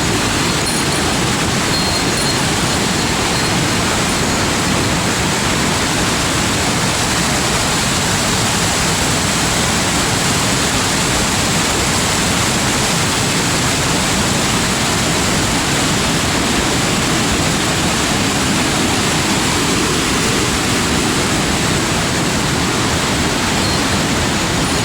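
Loud, steady rush of water from a waterfall or cascade in a mountain gorge, unbroken for the whole stretch.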